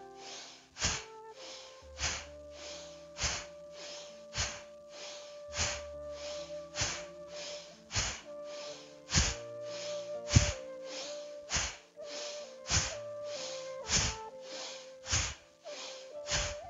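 Forceful, rhythmic yoga breaths from a woman, a sharp huff about every 0.6 s with every other one stronger, done as a fast bellows-style breathing exercise. Soft background music with long held notes runs underneath.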